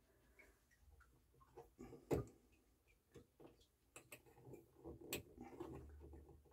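Faint, scattered small clicks and taps as hands work the metal parts at the base of a turntable tonearm, with one sharper click about two seconds in and a few more near the end.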